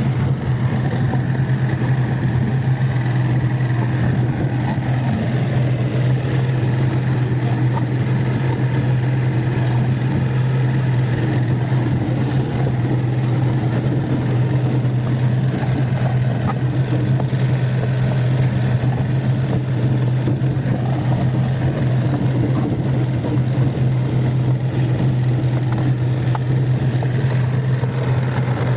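Kobelco SK50P mini excavator's diesel engine running at a steady speed, an engine in fairly good, normal condition.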